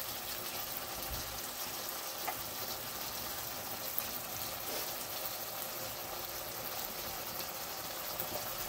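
Katla fish-head and potato curry sizzling and bubbling in a kadai as it cooks down in oil to a thick, dry gravy. The sound is a steady sizzle with a few small ticks.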